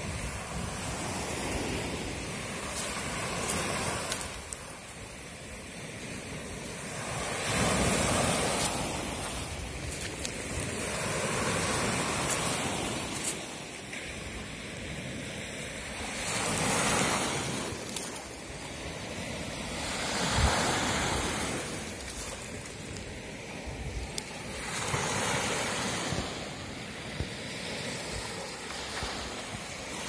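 Small sea waves breaking and washing up onto a sandy shore, the surf swelling and falling every few seconds.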